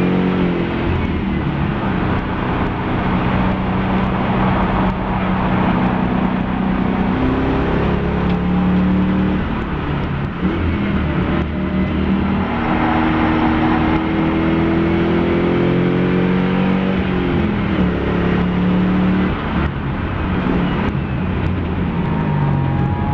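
Mopar-engined Nissan Fairlady Z race car running hard on track. The engine note climbs under acceleration and drops back several times as it shifts gear or lifts off.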